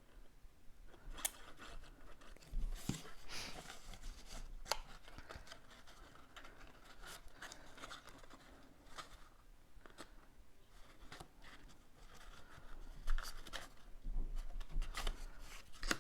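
Cardstock being handled and pressed together as box tabs are glued: scattered light taps, clicks and paper rustles, busiest around the third second and again near the end.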